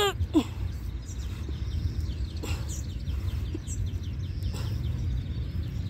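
Faint bird chirps over a steady low outdoor rumble, with a short pitched call sliding down in pitch right at the start.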